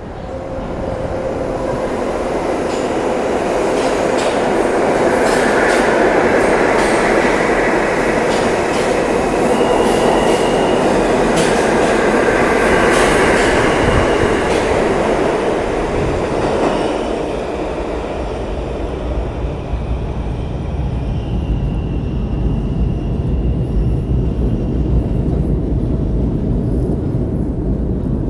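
R160A-1 subway train pulling out of an underground station: rolling wheel and track noise, with the electric whine of the traction motors stepping through several pitches as it picks up speed. Over the last several seconds a low rumble grows as the train runs off into the tunnel.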